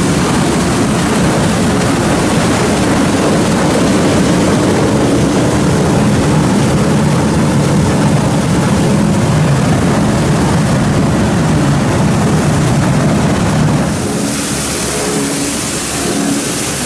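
Machinery of a plastic film recycling line running: a loud, steady machine noise with a low hum, as shredded film is conveyed and dropped through the line. About fourteen seconds in, the low hum fades and a brighter hiss takes over.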